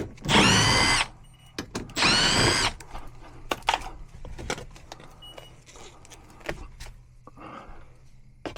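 Cordless drill-driver run in two short bursts, each winding up and then winding down, followed by scattered clicks and knocks of handling tools and parts.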